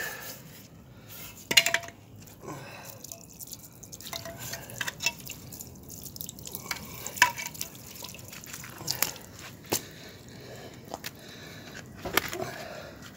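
Water from a garden hose splashing and dripping over a small metal fuel tank as it is rinsed and scrubbed with steel wool, with a few sharp clicks as the tank is handled.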